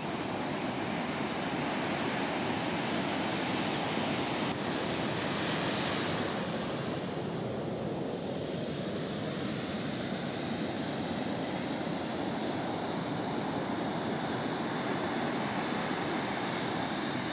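Ocean surf: waves breaking offshore and foamy swash washing up and back over a sandy beach, a steady rushing hiss that swells a little about four to six seconds in.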